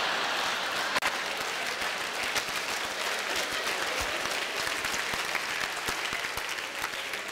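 Audience applauding after a punchline: a dense patter of many hands clapping, slowly dying down near the end.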